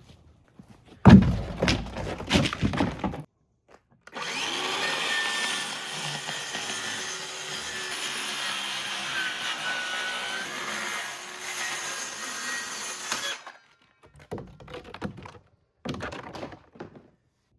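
Several knocks, then a small motor running steadily for about nine seconds, its pitch wavering slightly, then two short bursts near the end.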